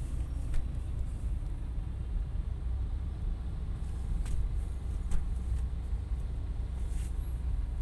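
Low steady rumble of a car idling in stopped traffic, heard from inside the car's cabin, with a few light clicks.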